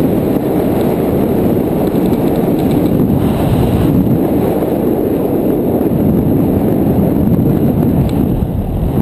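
Wind buffeting a GoPro Hero 2 camera's microphone as a mountain bike rolls fast downhill on asphalt: a loud, steady rush of low noise.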